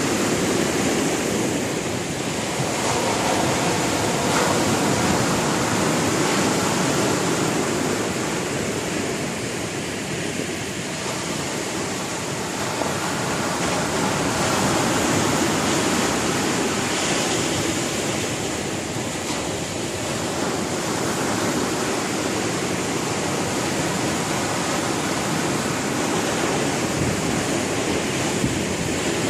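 Sea waves breaking on the shore: a steady rushing surf that swells and eases every several seconds.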